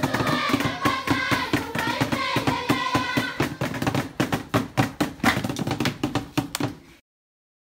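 A group of people clapping in a steady rhythm and singing together, the voices strongest in the first few seconds. The sound cuts off abruptly near the end.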